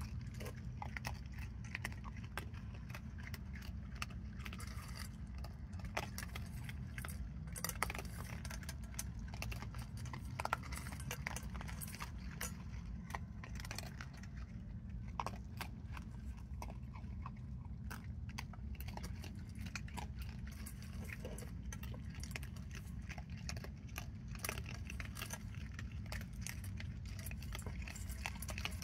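Raccoons crunching dry cat food and clinking against a stainless steel bowl: many small irregular clicks and crunches, over a steady low hum.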